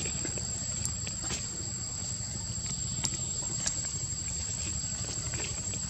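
A steady high-pitched insect drone, with scattered soft ticks and rustles and a low rumble underneath.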